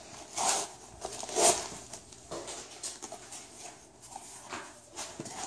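Cardboard shipping box being opened by hand: the flaps rustle and scrape in a few short bursts, the loudest two about half a second and a second and a half in, with small taps and clicks of the cardboard between them.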